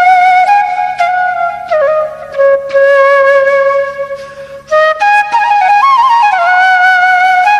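Background music: a slow melody of long held notes that bend and slide between pitches, with a short break about four and a half seconds in.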